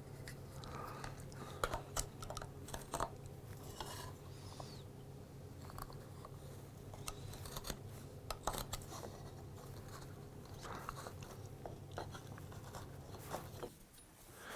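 Faint scattered clicks, taps and small scratches of measuring and marking out a wooden clamp part with a rule and pencil on a workbench, over a steady low hum that stops near the end.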